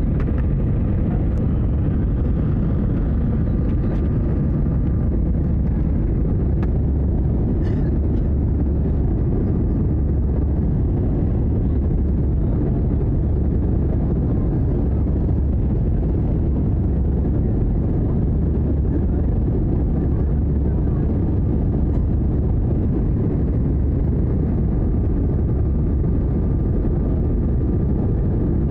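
Steady cabin noise of a jet airliner in flight, heard from a window seat by the wing: a deep, even rumble of engines and rushing air with a faint steady whine on top.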